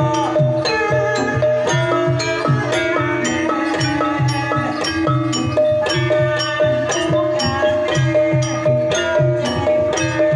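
Javanese gamelan playing a Banyumasan tayub gending: struck metallophones ring out a melody over a steady pattern of low hand-drum strokes.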